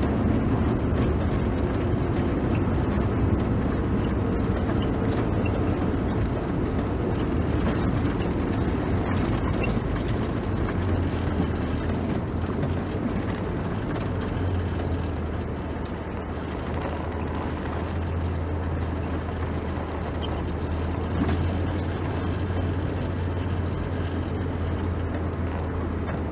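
Car engine and tyre noise heard from inside the cabin while driving: a steady road rumble with a low engine hum that settles to an even pitch about ten seconds in.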